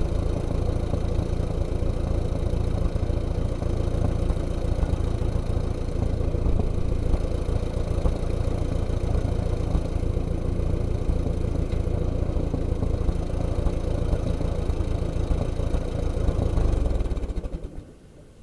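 Allis-Chalmers WD45 tractor engine running steadily at low speed, then shut off near the end, dying away over about a second.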